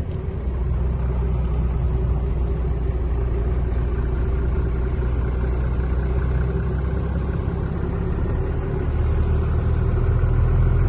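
Truck's diesel engine running at low revs, heard inside the cab as a steady low hum while the truck creeps along; it gets a little louder near the end.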